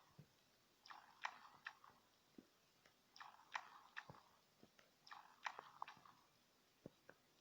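Close-up eating sounds: a person chewing and biting food with wet mouth clicks and smacks, coming in short clusters about every two seconds, then a few single clicks near the end.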